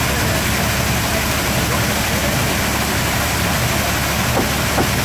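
Water pouring onto the kvernkall, the horizontal water wheel beneath a small Norwegian grist mill, and crashing down the rocks below in a steady loud rush with a low rumble.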